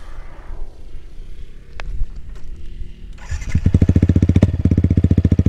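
Yamaha XSR 155's single-cylinder engine starting through an SC Project CRT aftermarket exhaust: it catches about three seconds in and settles straight into a loud, even idle.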